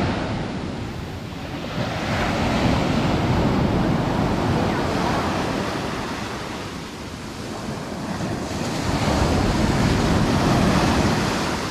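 Sea surf breaking along the shore, swelling up twice, with wind on the microphone.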